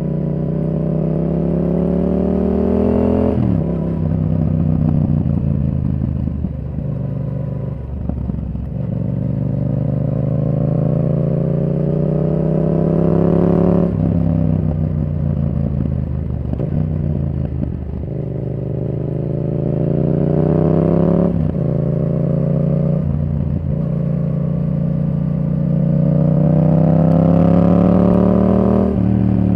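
Yamaha R7's parallel-twin engine through a Yoshimura R77 exhaust with the dB killer removed, riding under load. Its pitch climbs steadily for a few seconds at a time as the bike pulls, then falls away sharply, several times over.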